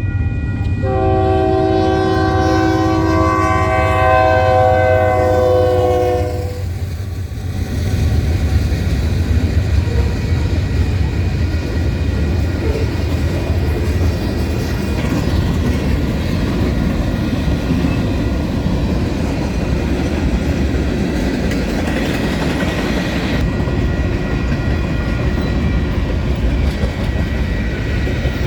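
Union Pacific diesel locomotive's multi-note air horn sounding one long chord for about six seconds, then a manifest freight train going by: the locomotive's engine and the steady wheel-on-rail noise of the passing freight cars.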